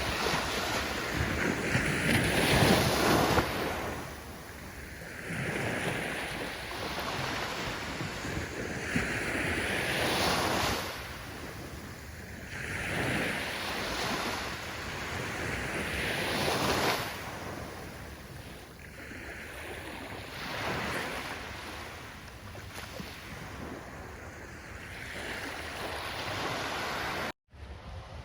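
Ocean waves breaking, the surf swelling and falling back in repeated surges every few seconds. The sound cuts out abruptly for a moment near the end.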